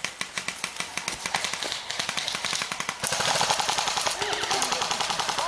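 Airsoft guns firing rapid full-auto bursts: a fast, even clatter of shots that gets louder about three seconds in.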